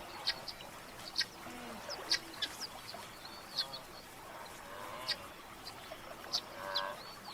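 Birds calling: a scatter of short, sharp high chirps, with a couple of longer nasal calls near the end.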